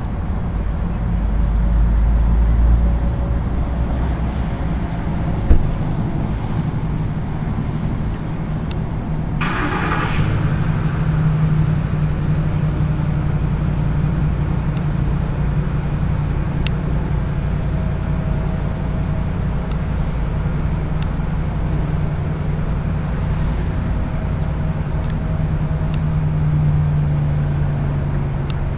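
Steady low rumble of road traffic and engines, with a short hiss about ten seconds in.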